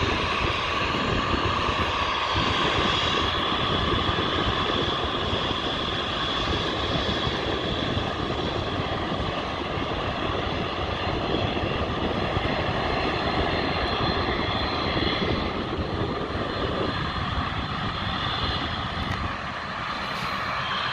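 Jet airliner engines running with a steady roar and a high whine over it, easing slightly near the end.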